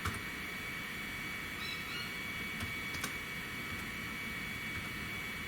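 A few sharp, isolated clicks from a computer keyboard and mouse in use, over a steady hiss with a faint high whine.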